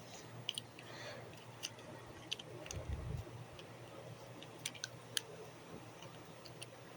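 Faint scattered clicks and taps of small plastic toys being handled, with a soft low thump about three seconds in, over quiet room tone.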